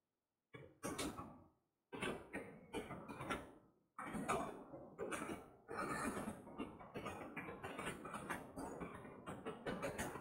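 Faint typing on a computer keyboard: a run of quick, irregular key clicks, starting about half a second in.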